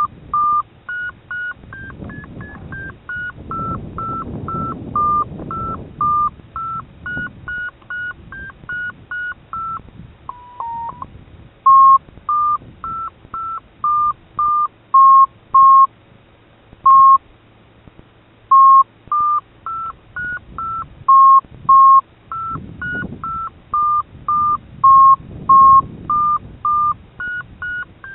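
FrSky variometer beeping: short electronic beeps whose pitch steps up and down, tracking the model's climb and sink. About ten seconds in there is one lower, falling tone.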